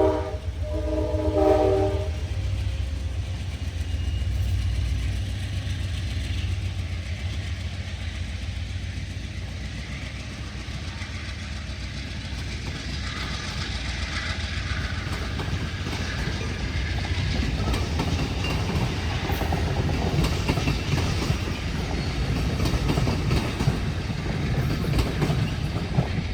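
A GE P42DC locomotive's Nathan K5LA airchime horn sounds one last chord blast of a bit over a second, starting about a second in, as the horn sequence ends. Then comes the steady deep rumble of its GE 7FDL-16 diesel as the train accelerates out, with the wheel clatter and rolling noise of the passing passenger cars growing louder through the second half.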